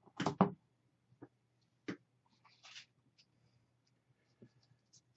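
Handling sounds of a small glazed ceramic figurine: a few light knocks and clicks, the loudest pair in the first half second and another about two seconds in, as it is turned in the hands and set down on a hard tabletop.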